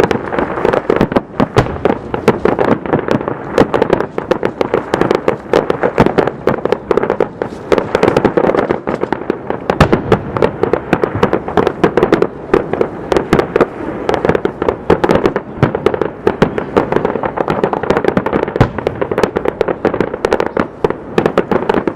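Aerial fireworks bursting in a dense, continuous barrage: many loud bangs and crackles a second, overlapping without a pause.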